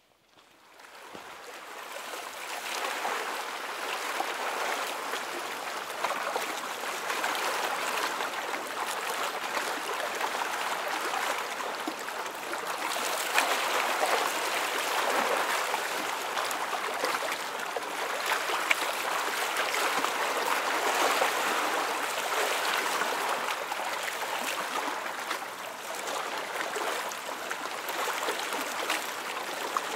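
Running water of a stream: a steady rush that fades in over the first couple of seconds and then holds, with small ups and downs.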